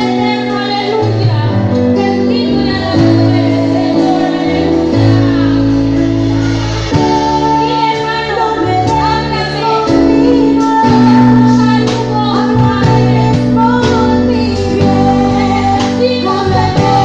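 Music with a high voice singing a melody over sustained instrument chords and a bass line that steps from note to note.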